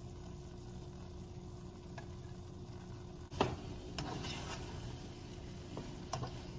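Faint sizzling from a pot of rice and meatballs as tomato sauce goes in, then, about three seconds in, a spoon knocks against the pot and scrapes around it as the mixture is stirred.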